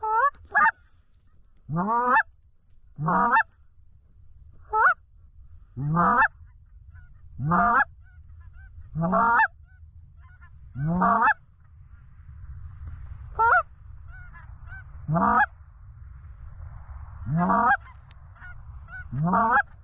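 Canada goose calling on a hand-blown goose call: about a dozen honks, each sweeping up from a low note to a high one, spaced roughly one every second and a half, calling to incoming geese.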